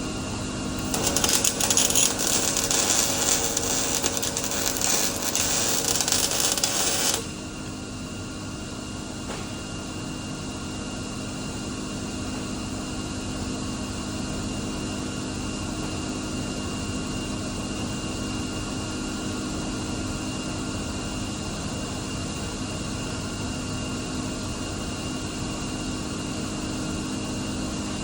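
Welding arc crackling for about six seconds, starting about a second in and cutting off abruptly. A steady electrical or fan hum continues underneath.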